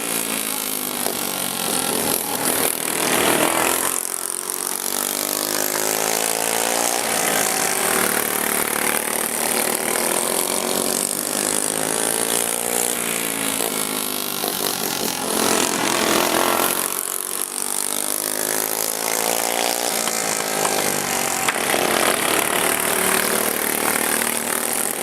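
Racing lawn mowers' small engines running hard around the track, their pitch rising and falling over and over as they speed up and back off. The sound swells twice as the pack passes close.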